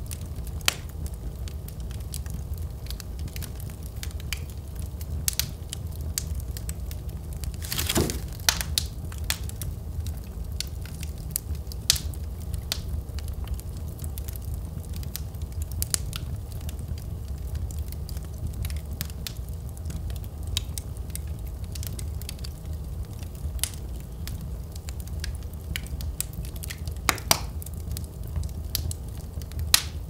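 Wood logs burning in a fireplace: a steady low rumble with scattered crackles and pops, a louder pop about eight seconds in and two more close together near the end.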